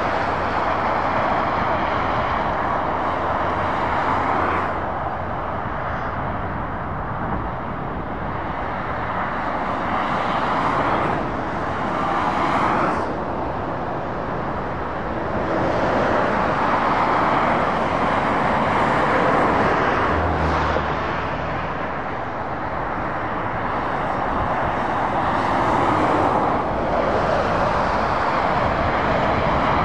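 Road traffic passing on a dual carriageway: tyre and engine noise of lorries and cars, swelling and easing as each group of vehicles goes by, with a deep engine drone for a couple of seconds about two-thirds of the way through.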